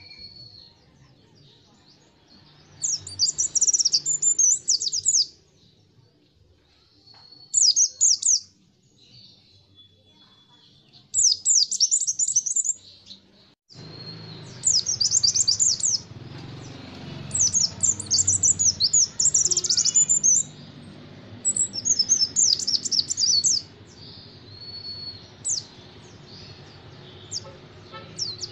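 White-eye (pleci) singing in rapid, high-pitched twittering phrases of about one to two seconds, separated by short pauses, with thin drawn-out whistles between some phrases. A low background hum comes in about halfway through.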